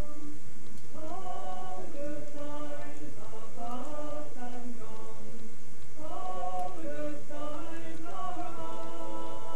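Voices singing together without instruments, in slow, held notes that move from pitch to pitch.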